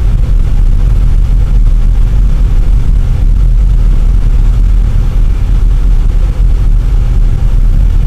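Steady low rumble of a car's engine and tyres heard from inside the cabin while driving on a snow-covered road.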